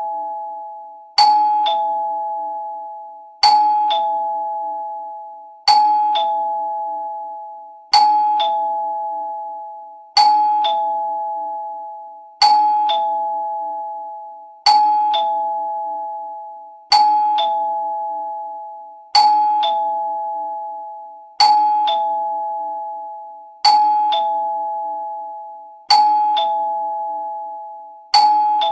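Two-note ding-dong doorbell chime ringing over and over: a higher note, then a lower one a moment later, each pair ringing out and fading before the next, about every two and a quarter seconds.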